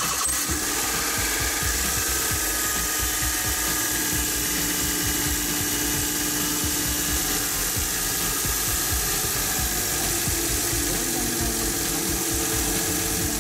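Nissan Clipper kei van's three-cylinder engine idling steadily, freshly filled with new oil after an oil and filter change and run briefly to circulate it.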